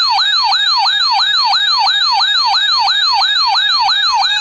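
Weather alert radio's alarm going off: a rapid, repeating siren-like sweep falling in pitch, about four times a second, over a steady tone. It signals a severe thunderstorm warning.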